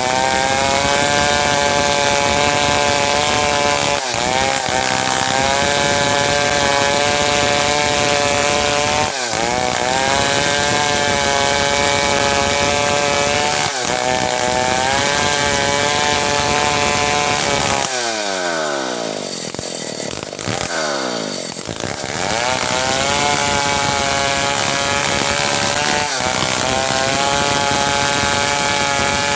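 Stihl 070 two-stroke chainsaw running at high revs, sawing through merbau timber, with brief dips in the engine note every few seconds. About 18 seconds in, the revs fall away, then climb back about four seconds later.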